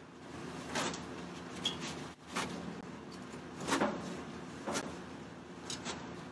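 Knife chopping celery on a plastic cutting board: a few separate knocks, roughly a second apart, over a steady hum.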